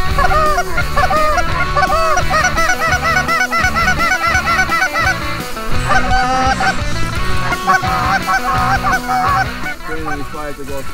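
A flock of flying geese honking, many short calls overlapping.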